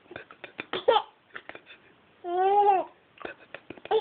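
Baby babbling: a few short vocal sounds about a second in, then one long, high-pitched drawn-out vowel that rises and falls, about two and a half seconds in.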